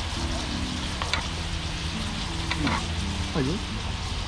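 Fish frying in butter in a pan, a steady sizzle.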